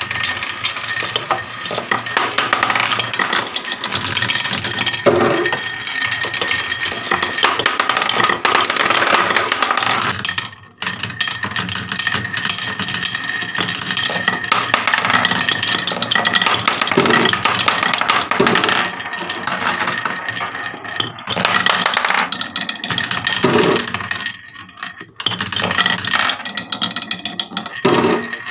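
Glass marbles rolling and clattering through wooden marble-run tracks, a spiral and a wavy carved groove: a dense, continuous rattle of many small clicks on wood. There are two brief lulls, about ten seconds in and again near twenty-five seconds.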